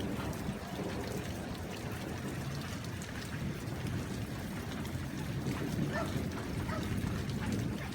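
Steady rain falling, with scattered drop ticks over a low rumble.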